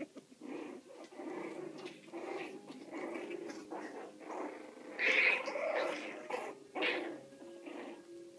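Two puppies about four and a half weeks old play-fighting, making a run of small growls and squeaky yips, with the loudest cries about five seconds in and again near the end.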